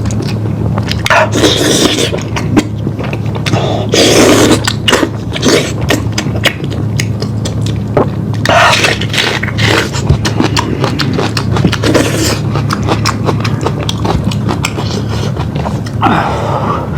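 Close-miked eating of lamb: wet chewing and lip-smacking clicks throughout, with a few louder slurps, over a steady low hum.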